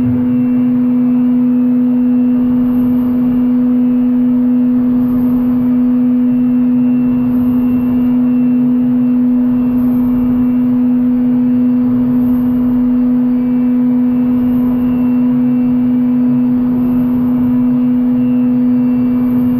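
Okuma MU400 VII five-axis machining center's spindle running at a steady high pitch as a CoroDrill 860-NM drill cuts aluminium, over the hiss of coolant spray.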